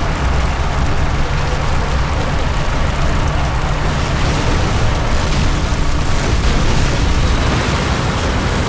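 Loud, steady rumble from an animated sound effect of a giant alien spacecraft passing low overhead. It cuts in suddenly and holds without separate blasts standing out.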